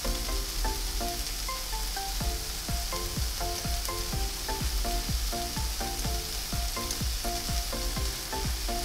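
Diced chicken and onions sizzling steadily in an oiled frying pan, under background music with a regular beat and short melodic notes.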